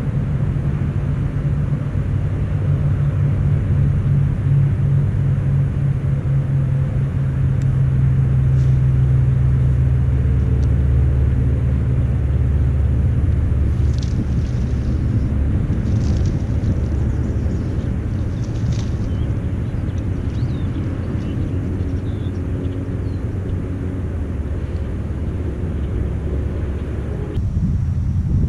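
An engine running steadily with a low droning hum. Its tone shifts lower about a third of the way in, and the sound changes abruptly near the end.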